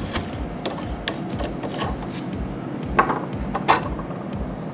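Steel dies being taken out of a hand press and handled: scattered small metallic clicks and clinks, a few near the start and two louder ones about three seconds in, some with a brief light ring.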